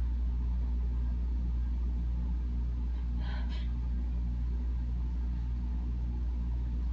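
Steady low hum, with one short, faint breathy sound from a person about three seconds in.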